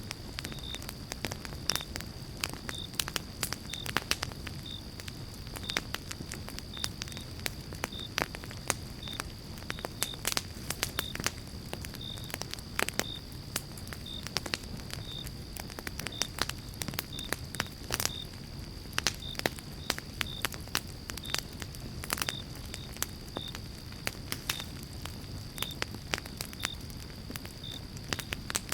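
Fire in a fireplace crackling, with frequent irregular sharp pops and snaps over a steady low rush of flame. A faint steady high tone runs underneath.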